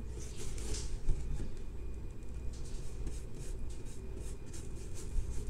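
Paintbrush being stroked over a cardboard box, a dry scratchy rubbing in repeated short strokes, over a steady low hum.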